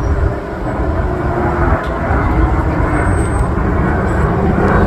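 Aircraft engine rumble from an air show plane passing, a low noisy rumble that grows louder.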